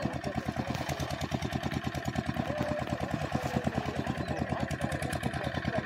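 An engine running steadily with an even chugging beat, about ten beats a second.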